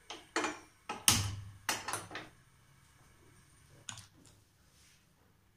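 A handful of sharp clicks and knocks as a gas stove burner is lit and kitchen utensils are handled. The loudest is a dull knock about a second in, with one more click near four seconds.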